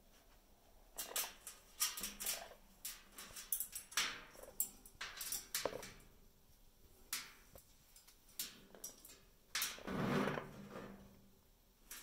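Scattered light clicks and taps as an Amazon parrot moves on a plastic-topped cage tray among small plastic toy balls, with a short animal call lasting about a second near the end.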